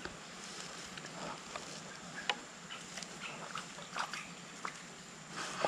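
Quiet tropical forest-creek ambience: a faint steady high-pitched insect tone over a soft hiss, with scattered small clicks and taps from handling the fishing pole and line.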